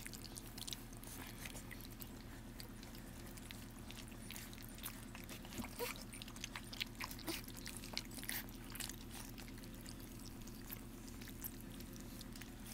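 Bullmastiff puppies lapping and smacking at wet puppy mush in a metal bowl: quiet, irregular wet clicks, bunched together in the middle, over a steady low hum.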